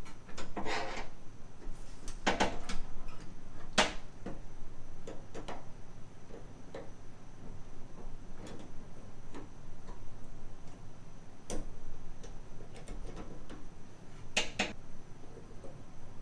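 Hand tools clicking, tapping and scraping on a small metal retaining clip on the back of a car door lock cylinder while it is pried off. The clicks are irregular, with scraping near the start and a few sharper metal clicks later on.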